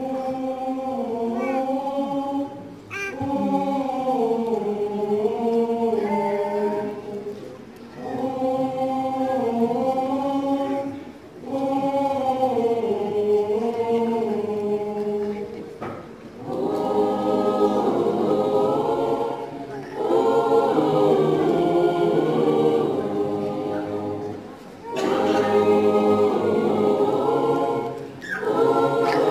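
Mixed choir of young men and women singing a hymn-like piece in harmony without accompaniment. The phrases are separated by short breath pauses, and the sound grows fuller with more voices and parts from about halfway through.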